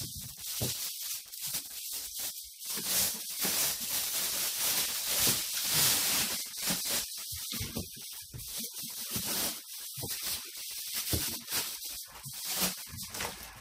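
Clear plastic wrapping rustling and crinkling in uneven rushes as hands unwrap and handle it.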